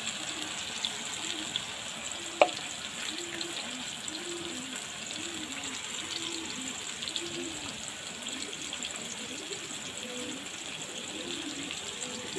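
Oil sizzling steadily in a metal kadai as ground spices fry with onions, with a single sharp clink about two and a half seconds in.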